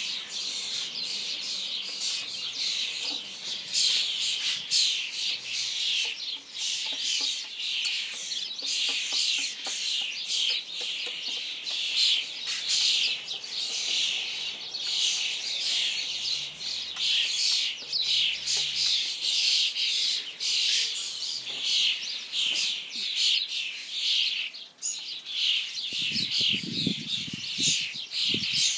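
A flock of common starlings, many of them newly fledged brown juveniles, calling without a break in a dense chorus of rapid chirps, the constant clamour of a fledging brood.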